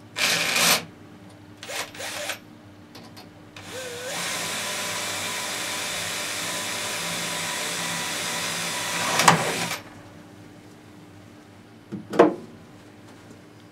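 Hand-held power drill with a 3 mm cobalt bit drilling a pilot hole into the thin aluminium alloy table edge of a table saw: two short bursts, then about six seconds of steady drilling with a sharp peak just before it stops. A single knock follows near the end.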